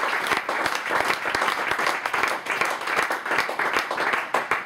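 Audience applauding: dense clapping that thins slightly near the end.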